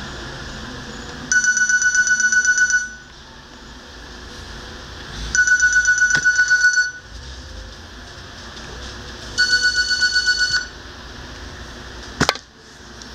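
Mobile phone ringtone: three bursts of rapid, high electronic beeping, each about a second and a half long with a few seconds' gap between them. Near the end comes one short sharp knock.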